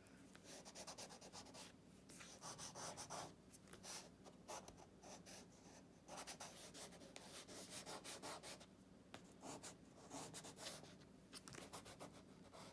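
Wax crayon held on its side and rubbed across paper, a faint, irregular run of short back-and-forth scraping strokes as an area is coloured in.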